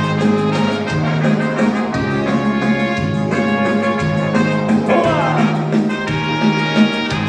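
Instrumental band music with brass, in a Latin style, playing between sung verses of a song.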